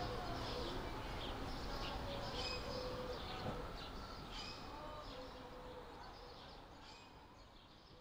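Outdoor ambience of small birds chirping repeatedly over a low background rumble, fading out steadily.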